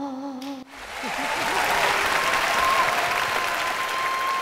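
A woman's held sung note ends about half a second in, then a studio audience breaks into applause that holds steady, with a thin held tone behind it.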